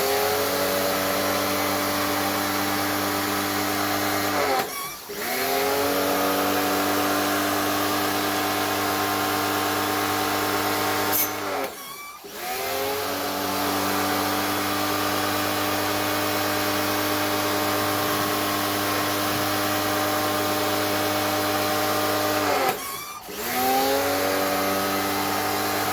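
Tacklife electric pressure washer running and spraying, a steady motor-and-pump hum over a hiss. It cuts out briefly three times, about five, twelve and twenty-three seconds in, and each time it winds back up to speed.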